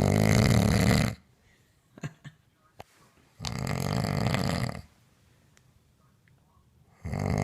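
A man snoring in his sleep: three long, rattling snores about three and a half seconds apart.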